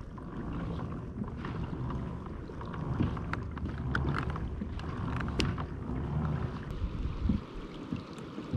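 Water sloshing and splashing around a kayak, with scattered small clicks and drips, over wind rumbling on the microphone that eases near the end.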